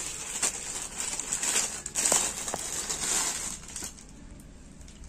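Clear plastic packets and folded fabric rustling and crinkling as they are handled, with sharp crinkles about half a second and two seconds in. The rustling stops about four seconds in.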